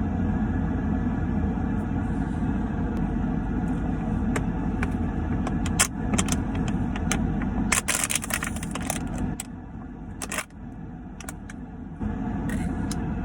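An empty plastic bottle crackling as it is squeezed, in scattered sharp cracks with a dense run of crackles a little past the middle, over a steady low rumble.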